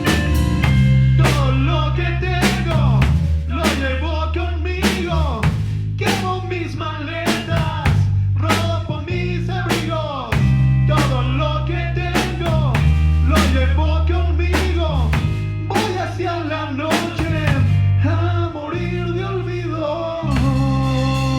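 A rock band playing live in an instrumental passage: a drum kit keeping a steady beat, bass guitar holding low notes, and a guitar playing a melodic lead with bending notes. Near the end the drums stop and held chords ring on.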